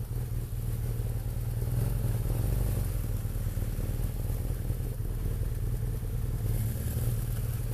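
BMW motorcycle engine running steadily at low revs while the bike creeps slowly into a parking spot.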